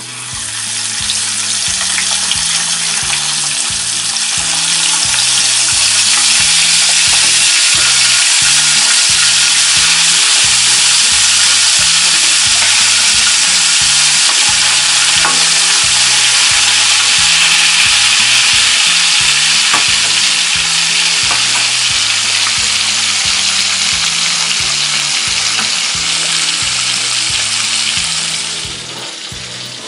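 Catfish pieces frying in hot oil in a wok: a loud, steady sizzle that starts as the fish goes into the oil, as the pieces are turned with a spatula. The sizzle drops off sharply near the end.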